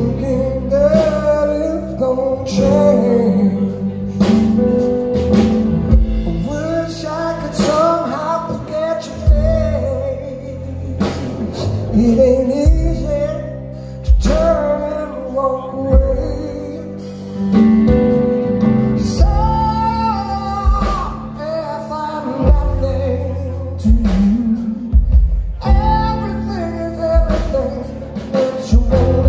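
Live rock ballad: a male singer's voice carries the melody over sustained keyboard chords with bass and occasional drum hits, recorded from the audience in a concert hall.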